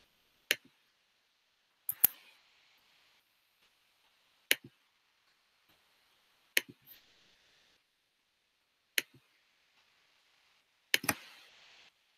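Computer mouse clicking: six single sharp clicks spaced a couple of seconds apart, two of them quick doubles, with faint hiss between.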